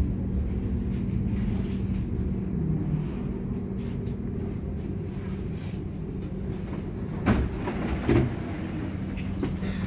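Electric tram running and drawing up to a stop, heard from inside the car: a steady low rumble with a constant hum, and two short sharp clunks about seven and eight seconds in.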